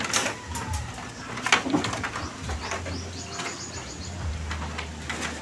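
A few sharp wooden knocks and clacks of bamboo poles being handled and fitted into a wall, the loudest at the start and about a second and a half in, with a bird calling in the background.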